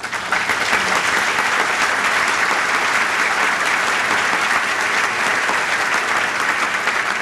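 Audience applauding, the clapping breaking out all at once and holding steady.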